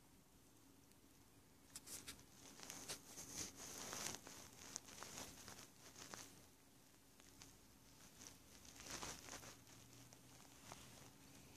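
Soft rustling and crackling of fur and bedding as a hand strokes a sleeping tabby kitten, starting about two seconds in and coming in uneven bursts until near the end.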